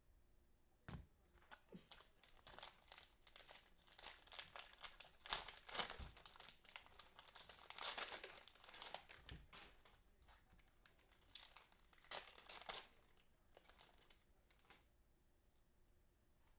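Cellophane wrapper of a trading-card cello pack being torn open and crinkled in the hands, a dense run of crackling that thins out near the end.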